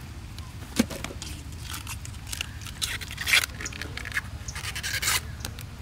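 Banana flowers being peeled by hand: scattered crisp snaps, scrapes and rustles of bracts and florets, with a few short bursts, over a steady low hum.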